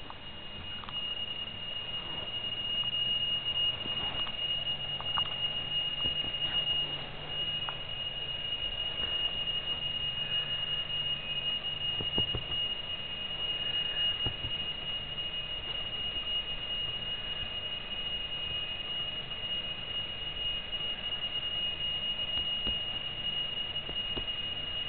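Alarm clock ringing with a steady, unbroken high-pitched tone.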